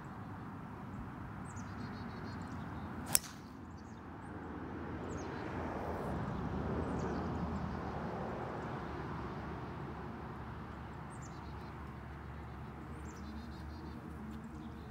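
Golf driver striking a ball off the tee: one sharp crack about three seconds in. Steady wind noise on the microphone underneath, swelling a little in the middle.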